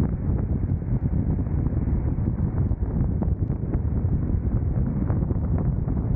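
Steady wind noise rushing over the camera microphone on a moving motorcycle, with small scattered ticks.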